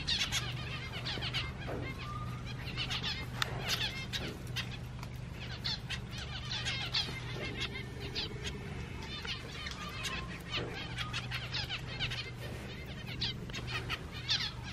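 A flock of aviary finches, zebra finches among them, giving many short chirping calls all through, over a low steady hum.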